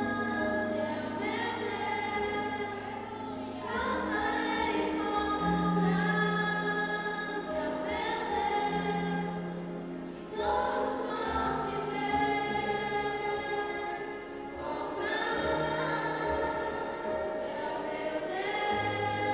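A teenagers' choir singing a gospel hymn in phrases over sustained instrumental accompaniment with held bass notes.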